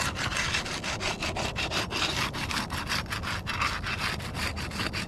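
Flat bar being worked rapidly back and forth under brittle asphalt shingles, a rhythmic scraping of several strokes a second as it breaks the shingles' adhesive seals.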